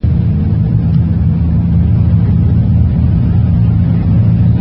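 Single-turbo Nissan RB26 straight-six of an R32 Skyline GT-R idling, low and steady.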